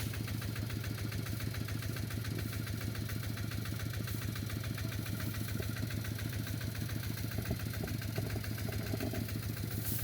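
Small engine running steadily, with an even, rapid firing beat and a constant low hum.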